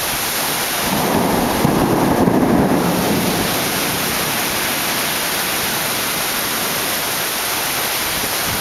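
Heavy thunderstorm rain pouring steadily, with a rumble of thunder that swells about a second in and fades out by about three seconds.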